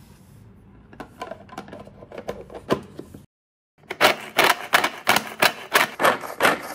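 Manual pull-string food chopper chopping broccoli: each pull of the cord spins the blades inside the plastic bowl with a quick clattering whirr. The pulls come about three a second, quieter at first, then louder after a short break.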